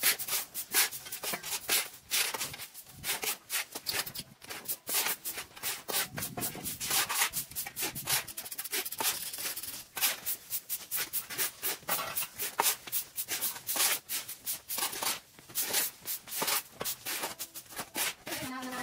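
Rapid, irregular rubbing and scraping strokes, several a second.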